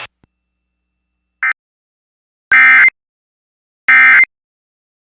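Emergency Alert System end-of-message data bursts: two short, loud, buzzy digital screeches about a second apart, after a brief faint blip. They signal the end of the weather warning.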